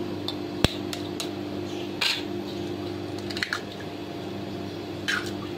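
A few short taps and clinks of kitchen utensils and an egg against glass bowls, the sharpest a single tap just over half a second in. A steady low electric hum runs underneath.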